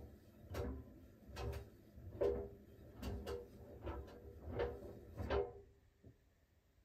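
Siemens iQ700 washing machine drum turning during its steam refresh cycle: a regular knock and rattle about every 0.8 seconds as the shirts tumble, over a low motor rumble. The drum stops about five and a half seconds in.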